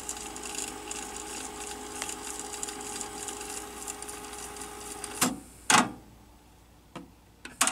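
Technics RS-TR170 cassette deck's transport rewinding a tape, a steady mechanical whir. About five seconds in the rewind stops with two loud clicks of the mechanism, half a second apart.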